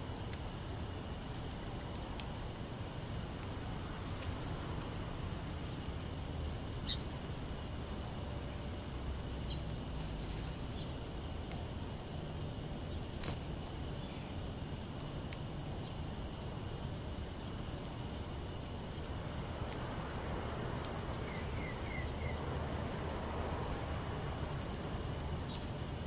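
Faint clicks of small birds pecking at birdseed on pavement, with a few faint bird chips and a quick run of four high chirps about three-quarters of the way through, over a steady low rumble.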